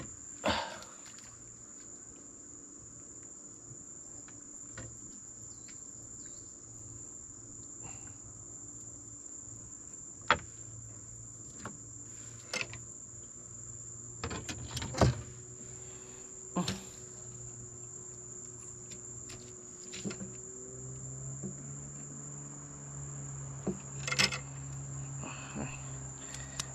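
Steady high-pitched insect chirring from the riverside mangroves, with scattered sharp knocks and clicks of fishing gear being handled on a small boat. A low hum comes in about three quarters of the way through.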